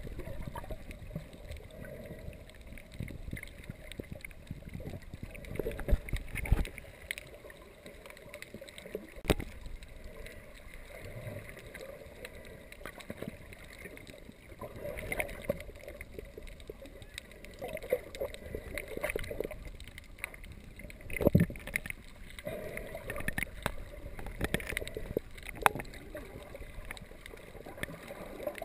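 Muffled underwater sound from a submerged GoPro in its waterproof housing: steady water swishing and gurgling, broken by a few sharp knocks and thumps, the loudest about six seconds in, near nine seconds, and around two-thirds of the way through.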